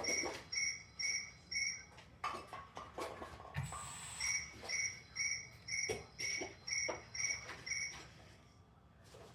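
Rapid high-pitched electronic beeping, about two and a half beeps a second at a fixed pitch, pausing for about two seconds and then resuming, with scattered clicks and knocks of handling.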